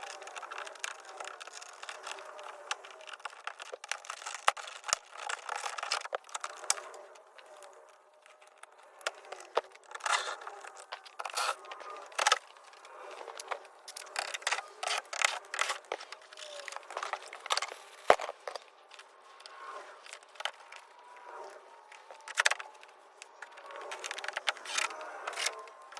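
Scattered sharp clicks, scrapes and rattles of hand tools and door-panel parts as work on a truck door goes on, with the clicks coming thickest in the second half.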